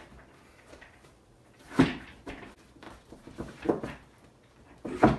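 Clunks and knocks of gaming-chair parts being handled and fitted together as the backrest is lined up on the seat: a few separate thuds, the loudest about two seconds in and near the end, with smaller knocks between.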